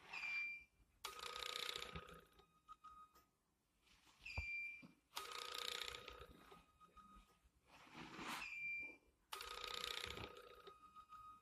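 Wonwell 2-in-1 HIFU and Liposonix ultrasound machine firing treatment shots, three times: each cycle is a short high beep, then a buzzing burst of about a second, repeating roughly every four seconds.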